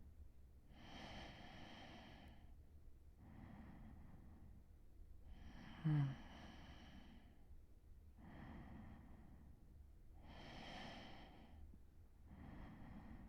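A man breathing slowly as he drifts toward sleep, about three breaths in and out. A little before the middle, one short, loud snort drops in pitch.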